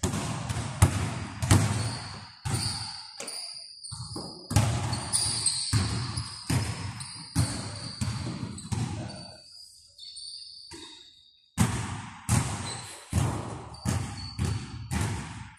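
Basketballs bouncing on a gym floor, a string of sharp echoing thuds at an uneven rhythm with a short pause about two-thirds of the way through, mixed with short high squeaks.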